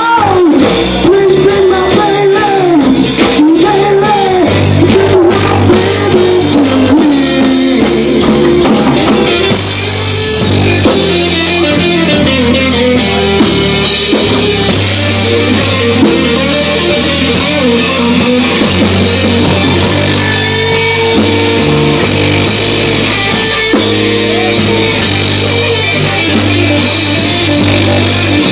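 Live rock band playing: electric guitar lead with bending notes over electric bass and a drum kit.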